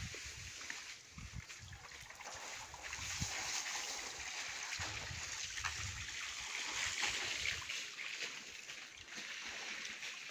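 Water spraying from a garden hose and splashing onto concrete walls, a steady hiss. Low rumbling on the microphone runs under it for the first seven seconds or so.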